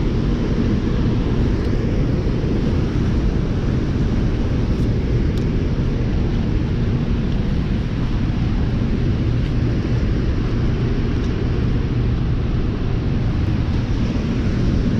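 Steady low rumble of river water pouring through open dam floodgates and churning in rapids below the spillway.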